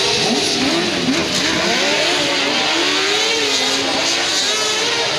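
Several crosskart engines racing at once, their pitches rising and falling in overlapping sweeps as the karts accelerate, lift off and shift gears.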